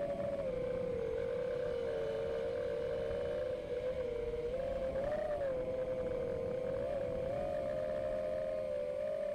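Emax 2306 brushless motors and props of a 5S FPV racing quadcopter whining in flight, heard from the onboard camera. The whine holds one steady pitch that wavers up and down with throttle, rising briefly about five seconds in.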